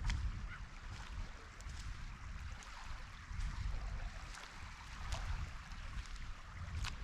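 Calm sea water lapping and trickling, with a steady low rumble of wind on the microphone and scattered short ticks at irregular intervals.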